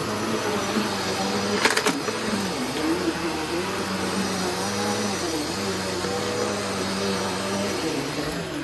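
Bissell PowerForce Turbo Pet 3332 vacuum cleaner running on carpet, its motor hum wavering in pitch as it is pushed, with a sharp click a couple of seconds in.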